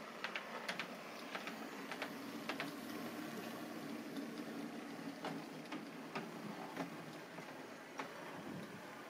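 A 0 gauge (7 mm scale) model steam locomotive running along the track: a steady motor and gear hum with irregular clicks from the wheels on the rails.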